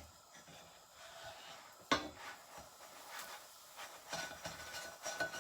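Kitchen utensils clattering against a pan: a sharp knock about two seconds in, then light clicks and scraping near the end.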